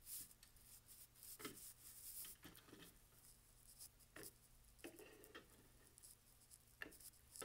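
Faint, irregular clicks and scrapes of LEGO plastic bricks as the lighthouse tower's stacked sections are pulled apart and set down on a wooden table.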